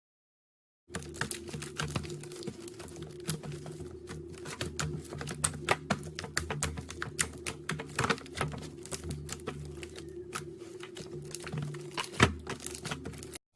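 Slime being squeezed and pressed by hand, making a dense run of irregular sticky clicks and crackling pops. One louder pop comes near the end.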